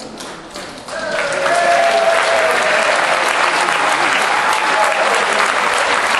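Audience applause breaking out about a second in and holding steady, with cheering voices and whoops over the clapping.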